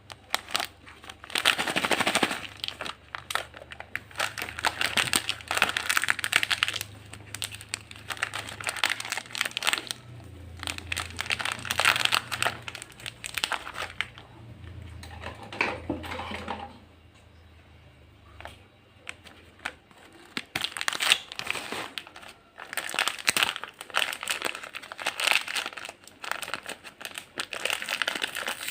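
Plastic snack packets crinkling and crackling as they are handled, in bouts of rapid crackles with a quieter pause about two-thirds of the way through.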